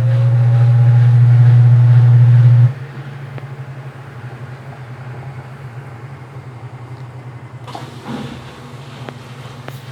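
Midea 12 kg washing machine's motor running with a loud, steady low hum that stops suddenly after nearly three seconds, then a quieter steady background with a brief noisy clunk or swish about eight seconds in.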